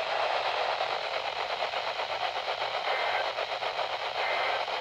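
Weak radio reception: a steady hiss of static through a receiver's speaker, with a couple of faint short tones about three and four seconds in. The signal is poor, 'garbage'.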